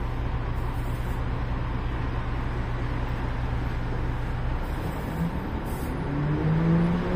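Ikarus 280.49 articulated city bus heard from inside the passenger saloon while under way: a steady low engine drone, which changes about four and a half seconds in. Near the end a rising whine with several tones climbs as the engine picks up speed.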